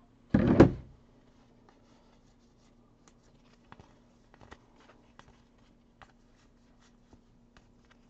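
A single heavy thump about half a second in, then scattered faint clicks and taps of small objects being handled, over a faint steady electrical hum.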